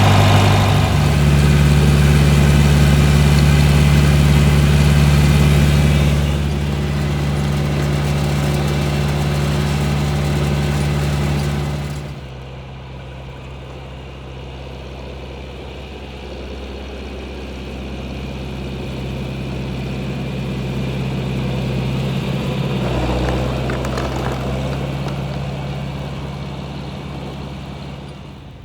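Tractor engine running steadily while plowing snow. It steps down in level about six seconds in and drops sharply about twelve seconds in, then swells again and fades near the end.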